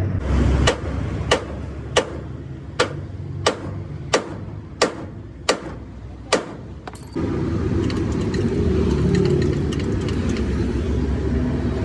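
About nine hammer blows on metal at an even pace, each with a short ring, during roadside work on a truck's axle and leaf-spring assembly. About seven seconds in a steady low engine rumble sets in abruptly.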